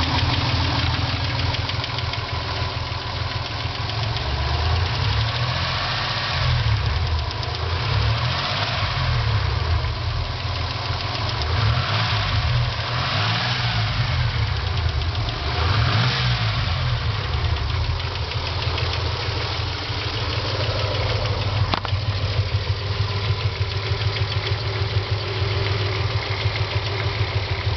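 1995 Dodge Stealth's SOHC V6 running with a steady, annoying ticking. The engine is revved up and eased back a few times in the middle, then idles with the tick repeating evenly.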